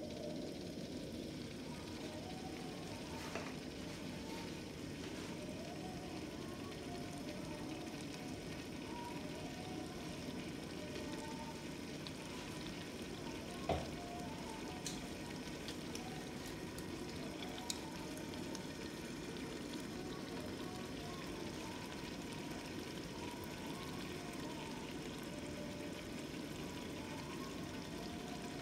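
Beef curry sizzling steadily as it fries in an open pressure cooker pot, with one sharp knock about halfway through.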